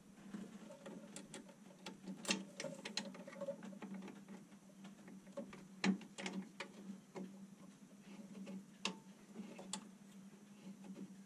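Scattered small clicks and knocks of hands working at the mounting of a Sidepower bow thruster motor, metal fittings handled and tapped, over a steady hum.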